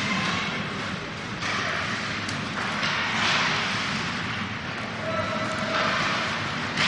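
Ice hockey play in an arena: skate blades scraping and carving the ice in repeated swells, with a single sharp click about two seconds in and a sharp hit at the very end.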